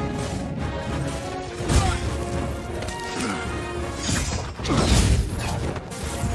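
Orchestral film score with battle sound effects mixed over it: a heavy crashing impact about two seconds in and a longer, louder crash around five seconds in.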